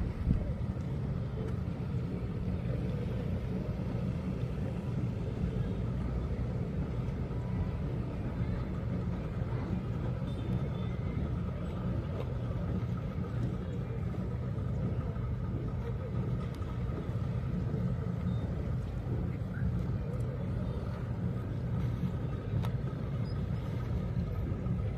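Steady low rumble that holds even with no breaks.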